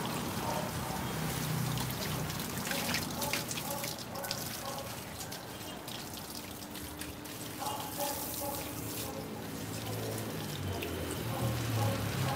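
Water from a garden hose running and splashing onto a dog's wet coat and the concrete floor as the soap is rinsed off.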